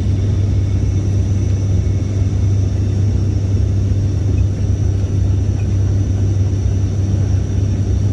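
Steady drone of an ATR 72-600 turboprop heard from inside the passenger cabin in flight: a strong, even low hum from the engines and propellers with a rumble of airflow beneath it.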